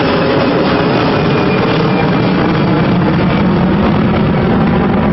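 Jet engines of an easyJet Airbus A320-family airliner climbing out overhead: a loud, steady roar with a faint high whine slowly falling in pitch.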